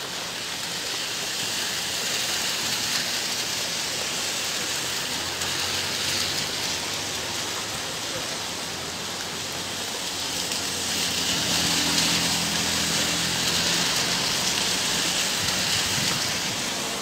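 Heavy rain pouring down and splashing on hard surfaces, as a steady hiss that swells louder in the second half. A low hum comes in about two-thirds of the way through and fades again.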